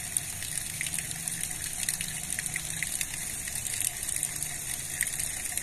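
Steady rush of water at the foot of a dam spillway: an even high hiss with a low hum underneath and faint ticks now and then.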